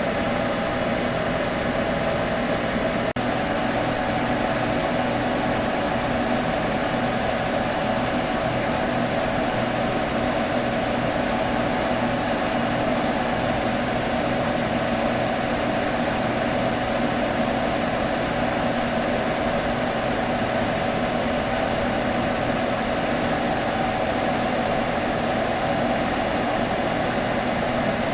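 Computer humming steadily, fan noise with a couple of steady tones in it, broken once by a brief dip about three seconds in.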